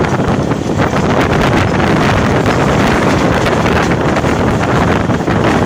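Heavy wind buffeting a microphone held out of the window of a moving Pakistan Railways railcar, over the steady running noise of the train.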